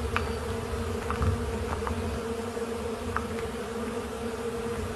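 Australian carpenter bees buzzing, a steady wing drone pitched at about 450 Hz, with a few faint ticks.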